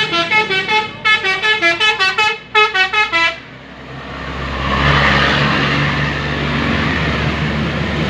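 A bus's 'telolet basuri' melody horn playing a quick tune of short stepping notes, stopping about three seconds in. Then a rush of vehicle noise swells with a low engine hum as the bus goes by.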